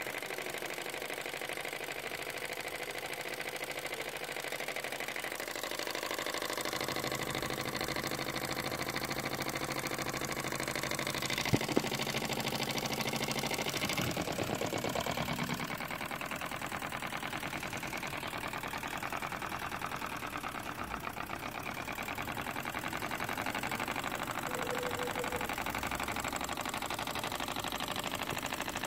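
1956 Castle Products B toy steam engine with a single oscillating cylinder, running steadily under steam from its meths-fired boiler, with a fast, even beat from the cylinder. Two sharp knocks come about eleven seconds in.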